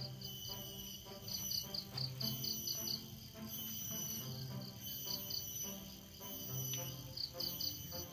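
Insects chirping in quick, repeated high-pitched pulses, over soft background music of slow sustained notes.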